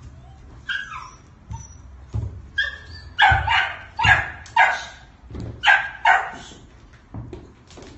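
Puppies yapping: a few thin whines in the first couple of seconds, then a run of about six short, high yaps over some three seconds.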